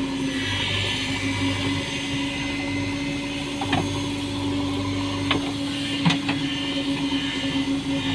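A JCB backhoe loader's engine running steadily under work, with a few sharp clanks about halfway through.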